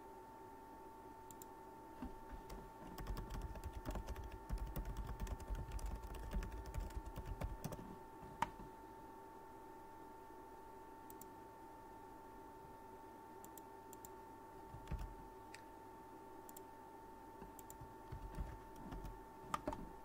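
Typing on a computer keyboard: a quick run of keystrokes from about two to eight seconds in, then a few scattered key clicks, over a steady faint whine.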